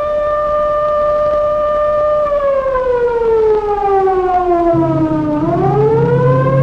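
Air-raid siren wailing: it holds a steady pitch, slides down over about three seconds, then climbs back up near the end. A low droning sound joins about five seconds in.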